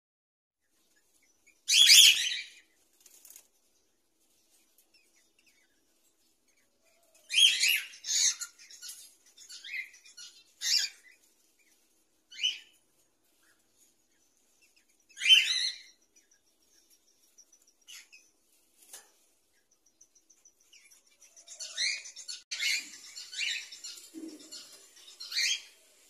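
A mating pair of cockatiels giving short, harsh, high chirps and calls in scattered bursts, with wings flapping. A busier run of chirps comes near the end.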